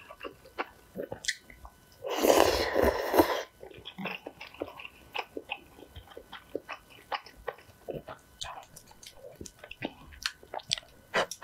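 Person eating instant noodles in soup: wet chewing and soft clicks throughout, with one loud slurp of noodles lasting just over a second, about two seconds in.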